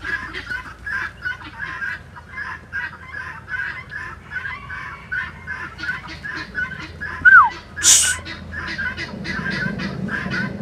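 Domestic geese calling in a quick run of short honks, several a second. A single falling whistle comes about seven seconds in, and a brief loud hiss just after.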